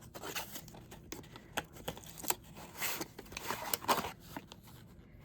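Small cardboard boxes being handled, with scattered taps, clicks and brief rustles of packaging.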